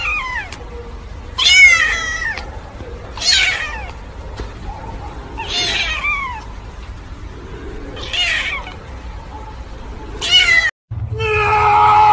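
A kitten meowing six times, high-pitched calls that each fall in pitch, a second or two apart. Near the end, after a brief gap, a loud steady sound with several held tones takes over.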